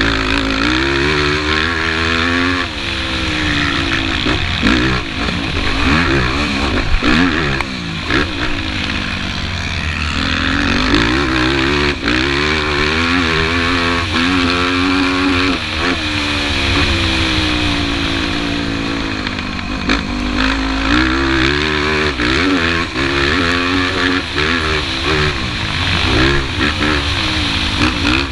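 A Yamaha YFZ450 sport quad's single-cylinder four-stroke engine under hard riding, revving up and falling back again and again as it accelerates, shifts and backs off for the track, heard close from the rider's helmet camera over wind noise.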